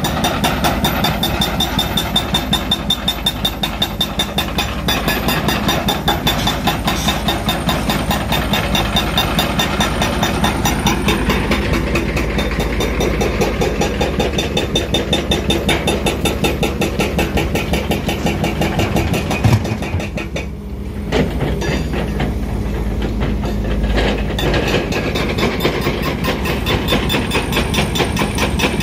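Hitachi ZX470 excavator's hydraulic breaker hammering rock in a fast, steady stream of blows, over diesel excavator engines running. The hammering breaks off for about a second some twenty seconds in, then starts again.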